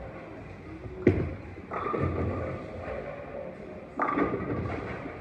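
Bowling alley sounds: a sharp thud about a second in as a bowling ball lands on the wooden lane, a rolling rumble, then a clatter of pins being struck about four seconds in, all echoing in a large hall.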